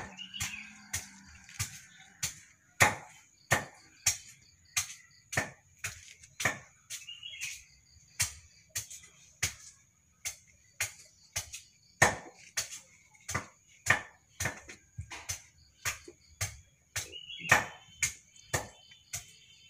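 Sharp knocks at a steady pace, about three every two seconds, over a steady high-pitched trill.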